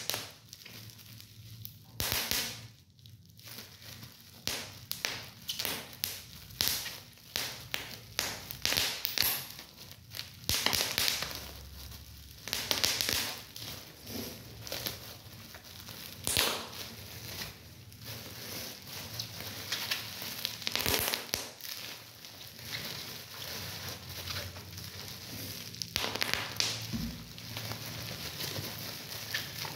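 Plastic bubble wrap squeezed and twisted by hand: irregular sharp pops of bursting bubbles, at times in quick clusters, amid crinkling plastic.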